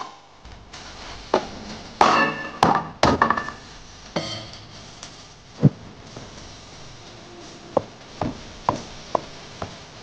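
Cleaver chopping on a wooden cutting board: about ten separate strikes at uneven intervals, some heavier thunks among lighter taps.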